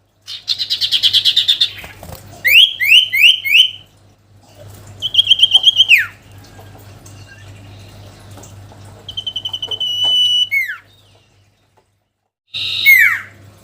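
A songbird singing in separate phrases: a fast trill, then four quick down-slurred whistles, then held whistles that each end in a sharp drop in pitch, with short silences between the phrases.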